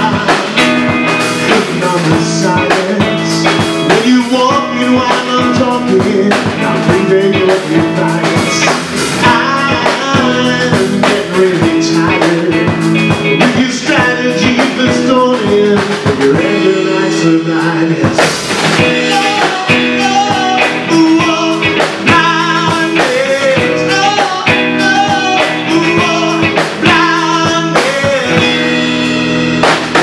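Live blues-rock band playing: electric guitar, electric bass and drum kit.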